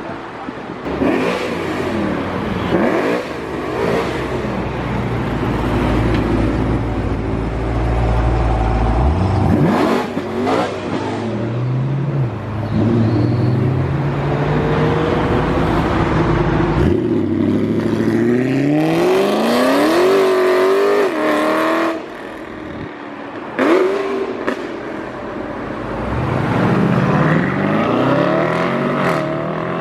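Several sports cars pulling away one after another, their engines revving and accelerating in repeated rising sweeps. Sharp exhaust pops come in between.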